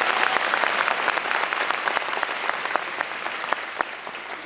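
Audience applauding, dense clapping that slowly dies down.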